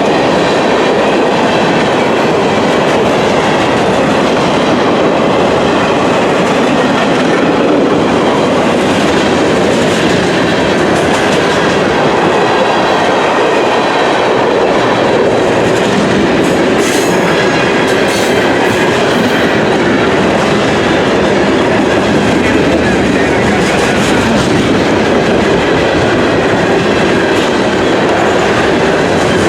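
A train rolling past, its wheels clicking over the rail joints in a steady, continuous run.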